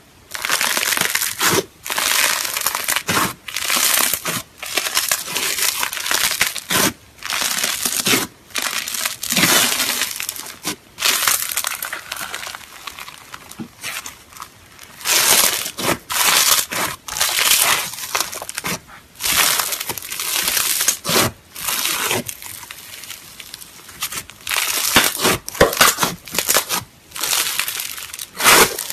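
Grainy crunchy slime being kneaded, squeezed and pressed by hand, giving repeated bursts of crackling crunches about once a second, with short pauses between.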